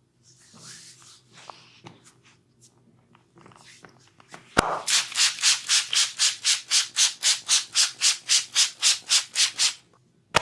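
Hands rubbing briskly back and forth over skin in a massage: a sharp snap, then about five seconds of rapid, even rubbing strokes, about four to five a second, ending with another short snap.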